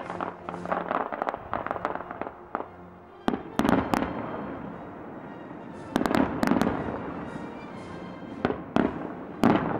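Fireworks display: a rapid run of crackling pops for about the first three seconds, then loud bangs of aerial shells bursting in clusters, about three and a half, six and nine and a half seconds in.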